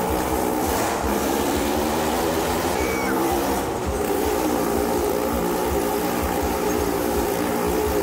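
Motorcycle engine running steadily at high revs as it circles inside a wall-of-death drum, with a short high-pitched glide about three seconds in.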